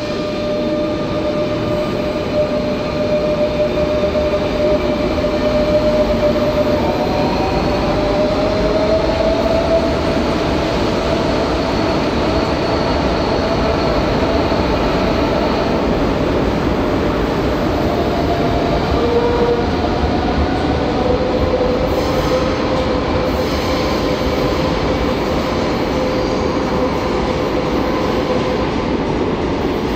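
Renfe Class 447 electric commuter trains running along an underground station platform: a steady rumble with a sustained high whining tone above it, which rises slightly about a third of the way in and returns later on.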